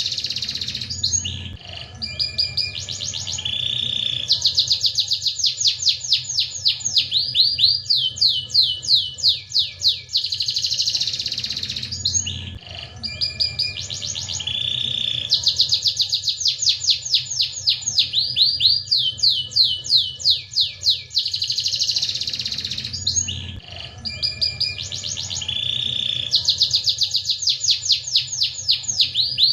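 Domestic canary singing continuously: a long song made of fast rolls of repeated sweeping notes and short held tones, with the same run of phrases coming round again about every eleven seconds.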